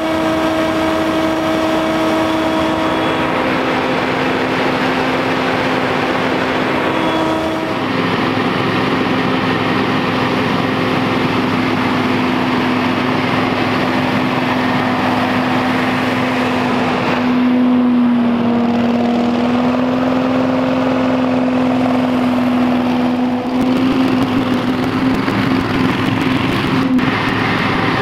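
Ferris FB3000 stand-on leaf blower running steadily at high speed: the 35 hp carbureted engine's steady note over the rush of air from its large impeller. The engine note drops a little about a quarter of the way in and wavers briefly past the middle.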